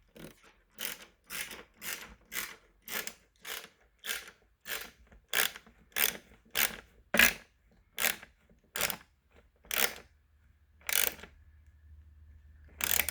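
Hand ratchet with a hex bit clicking on each back-stroke while an Allen-head sleeve nut is tightened onto a roof-rail stud, about two clicks a second, spacing out toward the end as the nut snugs up.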